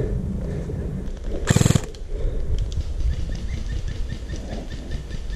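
A short mechanical rattle, about a third of a second long, a second and a half in, over a faint outdoor background.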